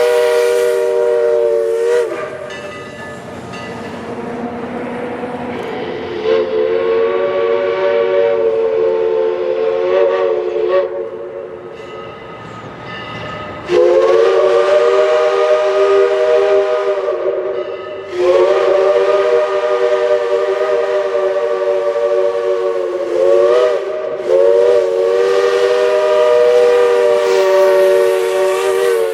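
Multi-chime steam locomotive whistle blowing a series of long blasts, several notes sounding together as one chord. The blasts are softer in the first half and louder from about halfway, with a short toot between two long blasts near the end.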